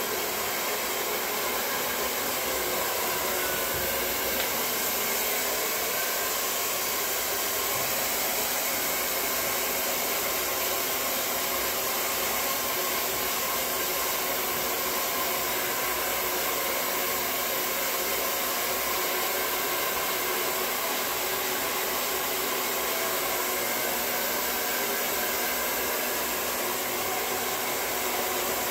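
Handheld hair dryer running steadily, blow-drying wet hair: an even rush of air that holds its speed throughout.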